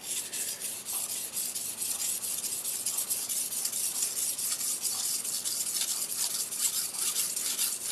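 Steel knife blade of a double-bevel gyuto being stroked back and forth on a wet 500-grit whetstone: a rapid, even run of gritty, hissing scrapes, tip section first.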